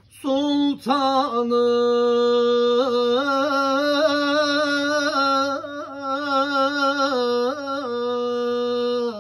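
A man singing a Turkish Sufi hymn (ilahi) solo and unaccompanied, drawing out long held notes with small ornamented turns in a wordless melismatic passage. The voice comes in about a quarter second in, after near silence.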